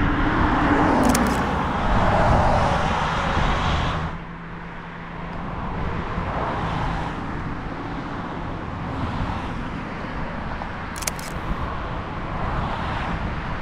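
Road traffic: a car passes with a falling pitch, loudest about two seconds in. After an abrupt change about four seconds in, steadier, quieter traffic noise follows.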